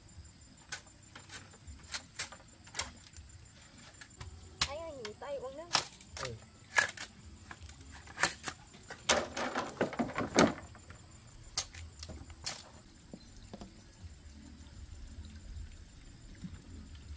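A run of sharp knocks, irregularly spaced, with a quick flurry about nine to ten and a half seconds in; they stop about twelve and a half seconds in.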